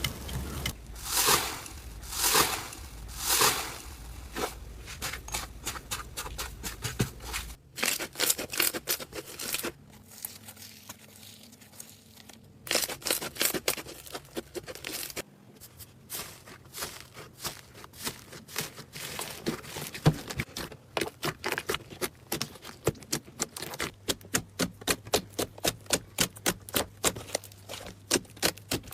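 Slime being squeezed and poked by hand, making runs of rapid clicks and crackling pops, with a few louder squishes near the start. The sound changes abruptly several times where the clips are cut together.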